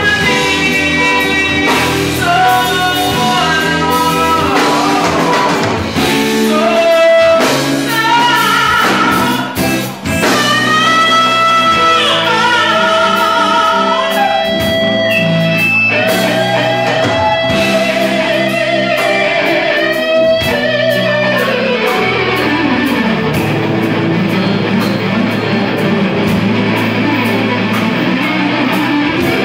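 Live funk band playing: electric guitar lines over bass and drums, with singing.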